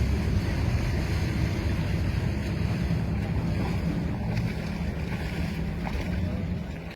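Wind buffeting the microphone over a steady low rumble and the wash of sea water from a motor yacht under way.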